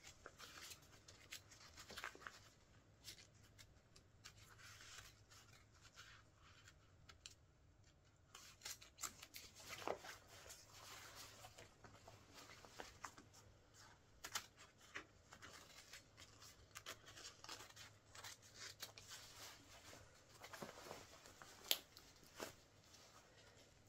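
Scissors cutting into the fabric of a Wellensteyn Schneezauber jacket: faint, irregular snips with the material rustling between cuts, one sharper snip near the end.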